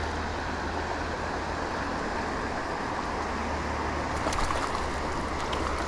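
Steady rush of flowing river water, with a low rumble underneath and a few faint clicks about four seconds in.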